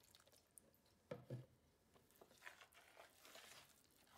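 Faint gritty scraping of a metal spoon stirring damp cornmeal dough in a bowl, with a soft knock about a second in.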